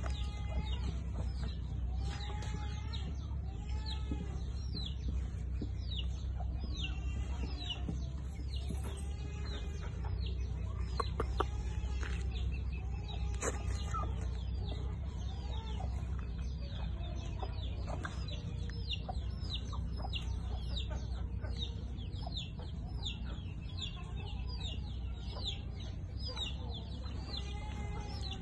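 Chickens clucking repeatedly, with many short high chirps throughout, over a steady low hum.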